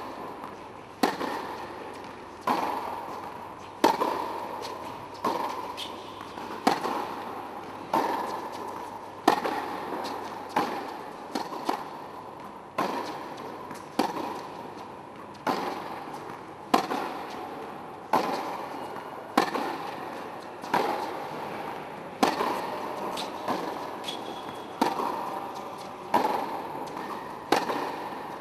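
Tennis balls struck hard with a racket over and over, one hit about every second and a half, each crack echoing in an indoor tennis hall.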